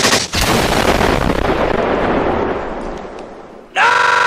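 A rapid burst of gunfire cuts off, then a loud blast whose rumble fades away over about three seconds. Near the end a man screams.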